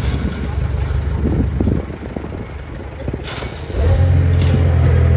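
Construction machine's diesel engine running, with a few clanks early, then rising sharply to a louder, heavier drone about four seconds in as it revs under load.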